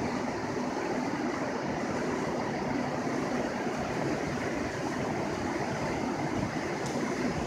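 Steady background rush of city street noise, with no distinct events.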